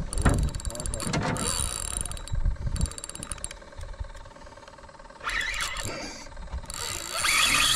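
A spinning reel being cranked in short bursts with rapid clicking while a hooked fish pulls against the bent rod. A louder rushing noise comes in near the end.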